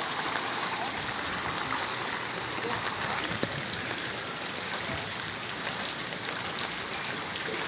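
Floodwater sloshing and splashing as it is waded through: a steady rush of moving water with small splashes and drips throughout.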